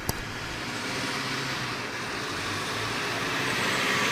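Road traffic: a vehicle approaching, its tyre and road noise a hiss that swells gradually. A brief click right at the start.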